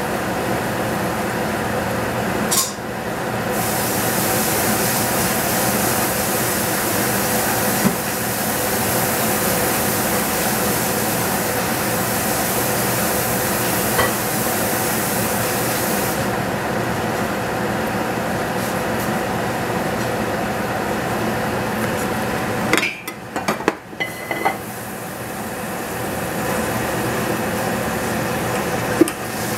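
Steady hissing and humming of cooking on the stove, with a few light clicks. The sound breaks up briefly about 23 seconds in.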